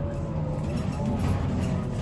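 Interior sound of a Volvo B9TL double-decker bus under way: engine and road rumble, with a steady high whine over it.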